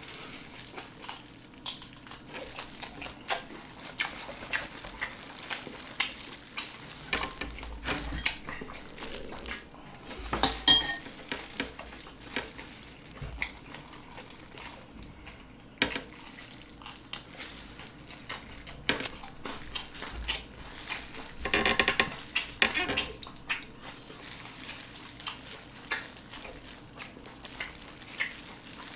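Close-up eating sounds of soy-sauce-marinated raw shrimp: wet chewing, sucking and smacking, with the rustle of plastic gloves peeling the shells and scattered sharp clicks and clinks against the dish. A denser crackly run of wet smacking comes a little past the middle.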